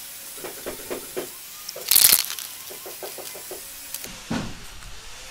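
Aerosol spray-paint can giving a short hiss of spray about two seconds in, amid light clicking taps before and after it and a dull knock near the end.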